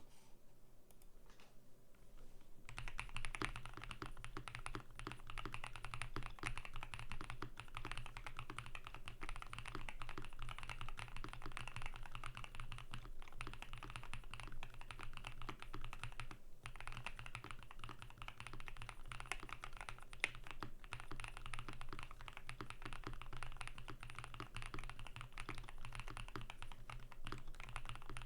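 Typing on a QK75N mechanical keyboard with lubed Vertex V1 switches, a polycarbonate plate and PBT keycaps: a dense, rapid run of keystrokes that starts about three seconds in, with two short pauses past the middle.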